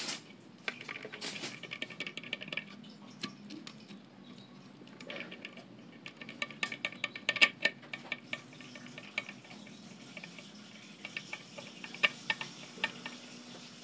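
Small irregular clicks, ticks and scrapes of a screwdriver working the clamp screw of a CRT television's deflection yoke as the yoke is fitted back onto the picture tube's neck. The clicks come thickest in the middle, with a few sharper ticks near the end.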